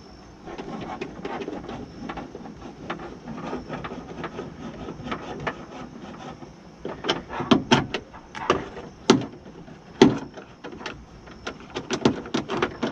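Hand work on a window regulator track inside a car door: parts and tools being handled and rustled, then a run of sharp, irregular knocks and clicks from about seven seconds in.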